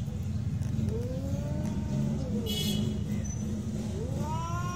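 Domestic cats caterwauling in a fight standoff: two long, drawn-out yowls that rise and then fall in pitch, the second starting near the end, with a short higher cry between them. A steady low rumble runs underneath.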